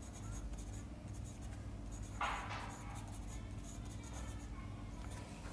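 Pencil writing on paper, short scratching strokes as letters are written, with a slightly louder stroke about two seconds in.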